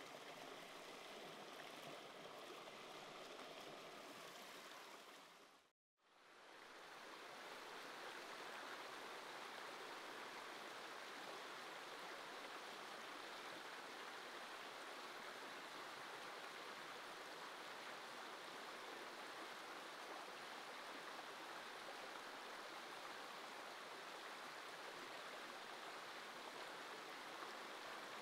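Shallow stream running over rocks, a steady rush of water. The sound drops out to silence for a moment about six seconds in, then returns.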